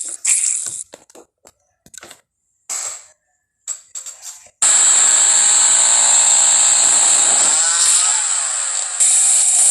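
A chainsaw starts abruptly about four and a half seconds in and runs loudly and steadily, its pitch bending briefly near the eight-second mark. Before it come scattered short clicks and knocks.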